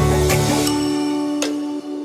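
Background electronic music with held synth tones and regular percussion hits; the low bass fades out over the second second, leaving thinner high tones.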